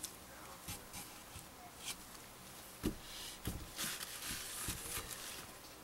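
Faint handling noises of a soap loaf on a wire soap cutter: scattered light clicks and scraping as the loaf is set down and pushed along the plastic base, with a few soft low thumps in the second half.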